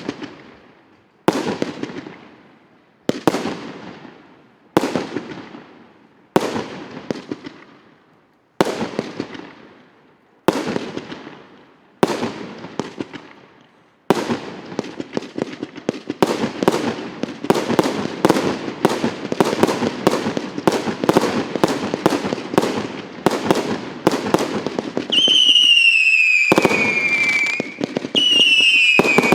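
A 100-shot, 1.2-inch (35 mm) fireworks cake firing. For the first half, single shots burst about every second and a half, each trailing off in a fading crackle. It then speeds up into a rapid, continuous barrage of shots and crackling. Near the end come two falling whistles.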